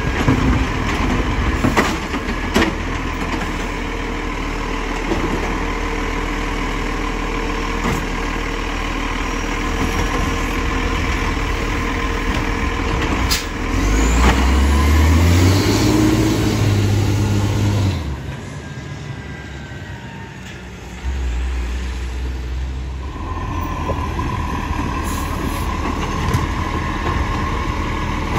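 Iveco side-loader garbage truck's diesel engine running while its hydraulic arm lifts and empties a wheelie bin, with sharp knocks of the bin and arm. About 14 s in the engine note rises and runs louder for about four seconds, then drops away before the steady engine sound returns.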